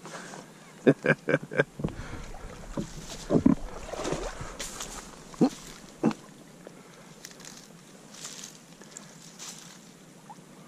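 Dry leaves rustling, with a few knocks, as a landed smallmouth bass is handled on a leaf-covered bank. About a second in there is a quick run of four or five short, sharp sounds.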